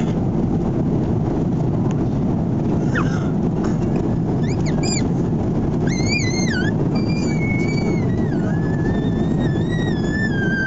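Steady drone of an airliner cabin in flight, with a run of high, wavering squeals that glide up and down starting about three seconds in, the last one long and sliding downward near the end.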